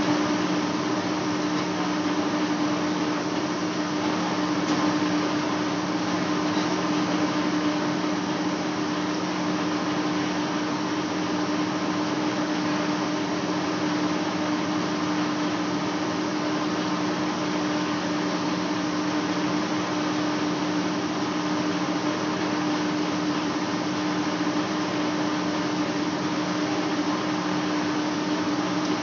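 Large engine lathe running, spinning a big metal flange during a facing cut: a steady machine hum with two constant low drones under an even hiss.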